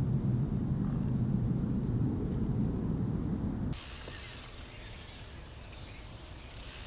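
A low, steady engine drone that cuts off abruptly about four seconds in, leaving a quieter outdoor hiss.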